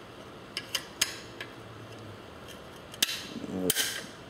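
A screwdriver working at the metal and plastic clips inside an old typewriter: scattered small metallic clicks and scrapes, then a couple of louder sharp snaps near the end, as a clip is prised loose.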